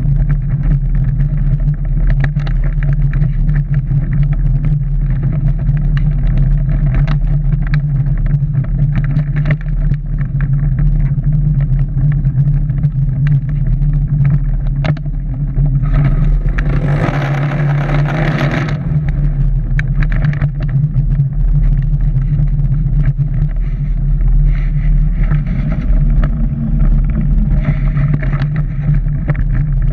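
Shell Eco-marathon prototype car running along the track, heard from inside its small shell: a steady low drone with many small knocks and rattles. About halfway through, a louder rushing noise swells for a few seconds and then fades.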